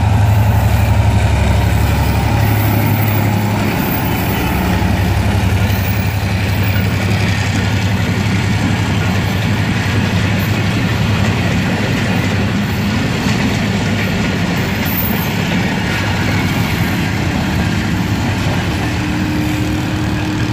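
GMU-15 diesel locomotive passing close, with a deep engine drone that dies away after the first few seconds. The steady rolling noise of its passenger coaches' wheels on the rails follows.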